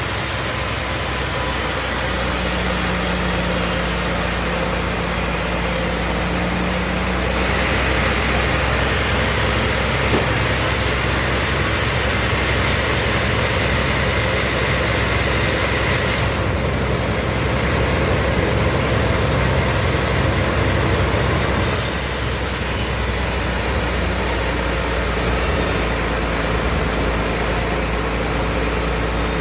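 Sawmill band saw running steadily, a continuous low hum with a hiss on top that changes character a few times.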